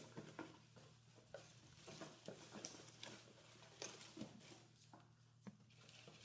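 Faint rustling and crinkling of plastic bait packages being handled and packed into a cardboard box, with scattered light clicks and taps, over a low steady hum.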